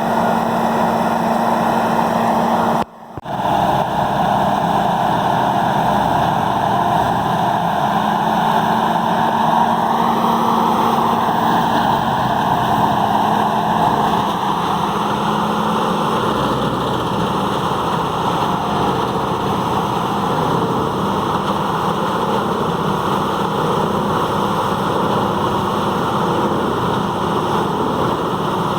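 Peterson 5710D horizontal grinder's 1125 hp engine running under heavy load, a loud, steady drone with the rush of material being ground. The sound drops out suddenly for a moment about three seconds in, then resumes.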